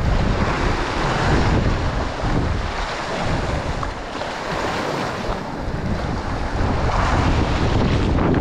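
Wind gusting across the microphone with a low buffeting rumble, over the wash of surf on the shore.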